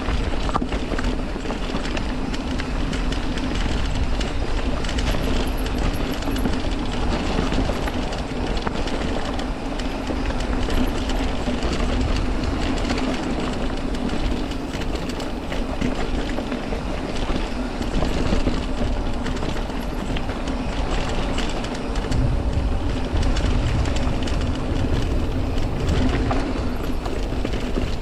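Mountain bike riding fast along a dirt singletrack: tyres rolling over dirt, rocks and roots, with a dense, steady rattle of the bike.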